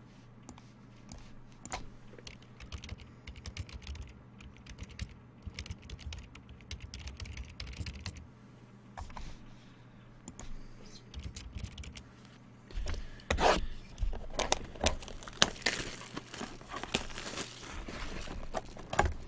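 Quick, light clicks of typing on a computer keyboard. From about two thirds of the way in they give way to louder crinkling and rustling, like card-pack wrappers being handled.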